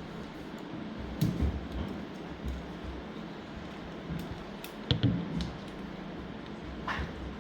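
A few scattered light clicks and taps over a steady low background hum.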